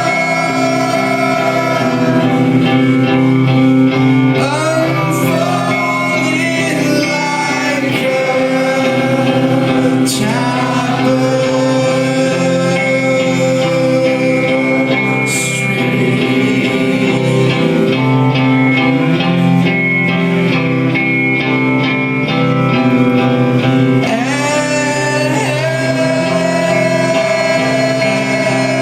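Live rock band playing, with electric guitars and a male voice singing, in a hall's acoustics.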